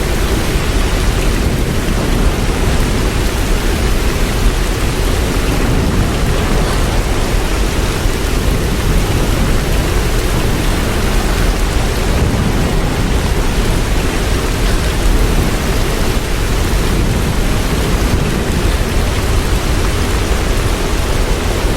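Hurricane storm noise: heavy rain and wind in a loud, steady rush with a deep rumble underneath.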